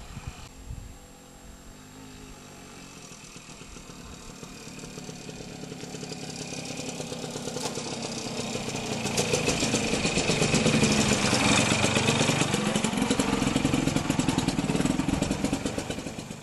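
BSA Bantam D7 Super's single-cylinder two-stroke engine as the motorcycle rides up and past. It grows steadily louder for several seconds, is loudest about two-thirds of the way through with its pitch dipping, then falls away sharply near the end.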